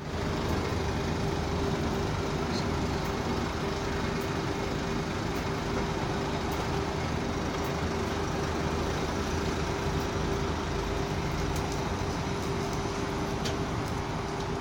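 Revolution washing machine running steadily near the end of its main wash cycle: an even mechanical hum with a constant whine.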